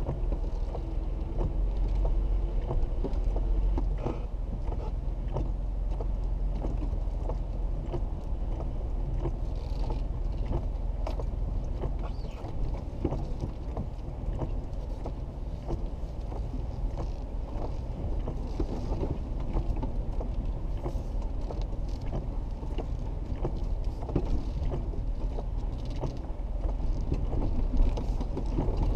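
Jeep Wrangler JK driving slowly over a rough, wet dirt trail, heard from inside the cab: a steady low engine and road rumble with frequent creaks, knocks and rattles from the body and suspension.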